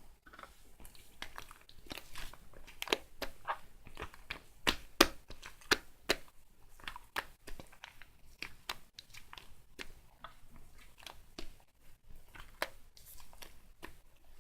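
Irregular crisp crunches and clicks, several a second, loudest in the middle stretch.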